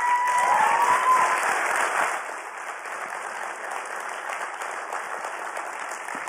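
Audience applauding, loudest over the first two seconds and then settling into steady clapping, with a short cheering call or two at the start.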